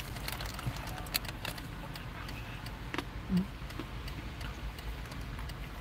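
Low steady rumble of a car heard from inside its cabin, with several light clicks and ticks, most of them in the first second and a half.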